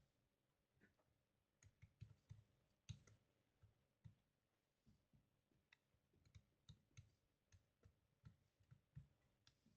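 Near silence broken by faint, irregular small clicks and taps of hand tools and small screws being worked on a laptop.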